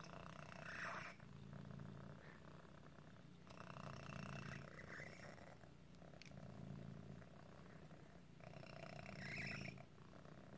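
Cat's squeaky, rasping breaths, the higher rasp coming about three times with a low rumble between. It is the sign of a deformity that makes breathing hard for him, much like asthma in people.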